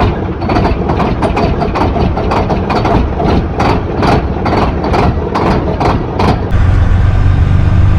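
Heavy diesel engine running under a series of irregular sharp clanks, two to three a second, for about six and a half seconds. It then changes abruptly to a steady low engine idle.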